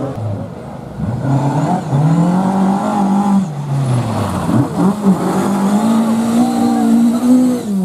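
Rally car engine revving hard as the car drives the stage: its pitch climbs, drops about three and a half seconds in, wavers, climbs again and drops near the end with the lifts and gear changes.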